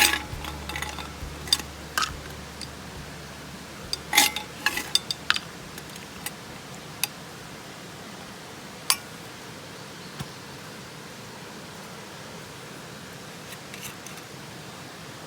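Scattered sharp clinks and knocks of small objects being handled, thickest about four to five seconds in and thinning out after ten seconds, over a steady faint hiss.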